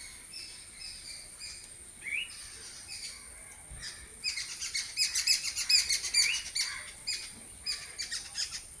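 Birds calling: short repeated chirps, with a fast, louder run of chirping from about four to seven seconds in. A steady high-pitched tone runs underneath.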